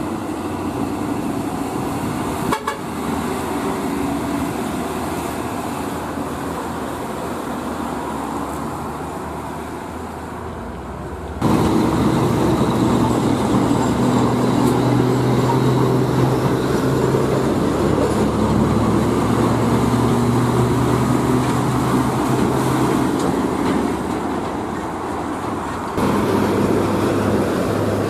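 Heavy diesel trucks running past with road traffic. About eleven seconds in it cuts to a louder, closer truck diesel, a UD Trucks PK 260CT tractor unit, whose low, steady engine hum holds for about ten seconds.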